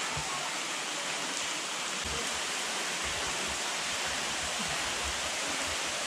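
Steady rush of water from a waterfall and the stream below it, with soft low thumps from about two seconds in.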